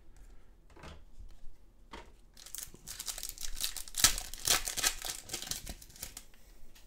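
A trading card pack's wrapper being torn open and crinkled by hand: scattered handling clicks, then a crackling rush of tearing and crinkling from about two seconds in, loudest around the middle, easing off near the end.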